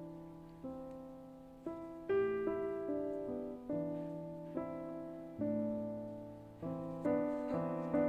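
Slow, gentle background piano music: chords struck about once a second, each note fading before the next.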